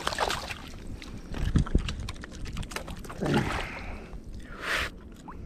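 A speckled trout thrashing and splashing at the water's surface as it is landed, followed by irregular splashes, clicks and handling noises, with wind on the microphone.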